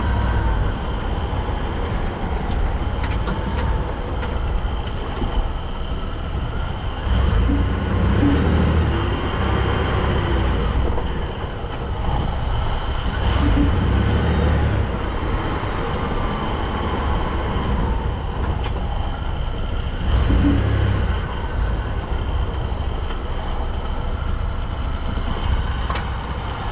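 2022 Ford F-150 driveline running, with a deeper surge and a short knock three times. This is the noise the owner says comes each time the truck accelerates from a stop, and which he ties to the drive shaft's slip spline compressing.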